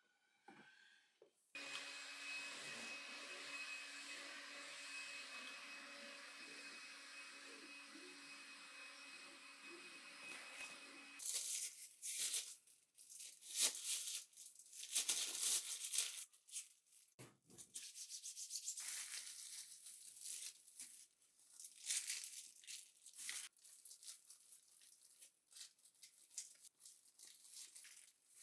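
A household appliance runs with a steady hum and stops suddenly about eleven seconds in. Irregular rustling, tapping and crinkling of things being handled follows, like plastic packaging being moved about.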